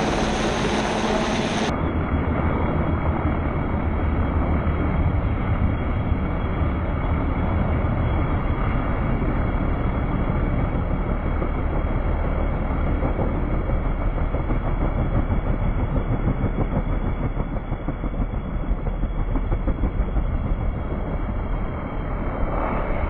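Helicopter running at close range as it comes in to land, a steady heavy rumble of rotor and engine noise mixed with the rush of its downwash blowing sand and wind across the microphone.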